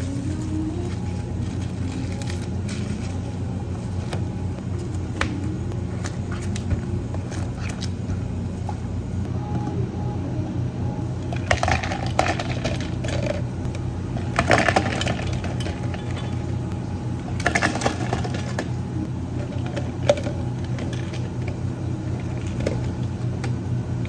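Steady low hum of cafe equipment, with scattered clicks and three short bursts of clinking and clattering, like cups, utensils or ice being handled during drink preparation.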